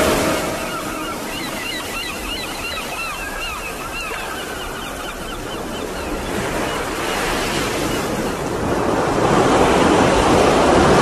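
Ocean waves washing in on a soundtrack, swelling towards the end, with a run of quick high chirps in the first half.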